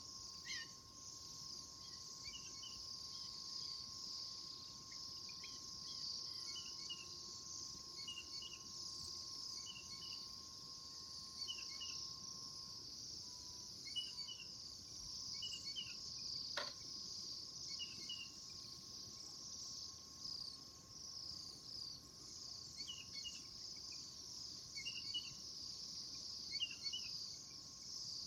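A flock of small birds chirping continuously: a dense, high-pitched chatter of many overlapping short calls, with a few lower chirps standing out every second or two. A single quick falling whistle comes a little past halfway.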